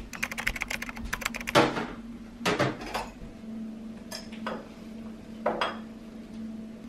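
Dishes and cutlery being handled: a quick run of light clicks, then several separate clinks and knocks, over a faint steady hum.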